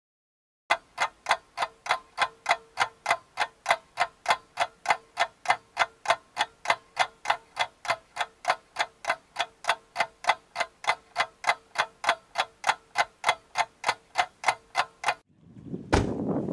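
Clock ticking, about three ticks a second, evenly and without pause, with a faint steady hum beneath. The ticking stops about a second before the end, and a rustling noise with a thump takes over.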